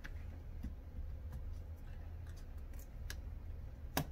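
Scattered light clicks and taps as a laptop hinge is worked back into the display lid, with one sharper click near the end, over a low steady hum.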